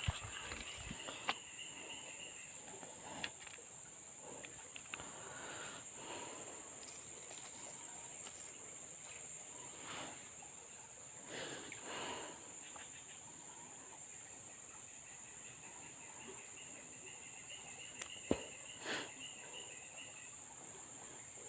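Steady high-pitched drone of insects, with a pulsing trill at the start and again toward the end. A few sharp clicks and short rustles sound over it, the loudest pair of clicks near the end.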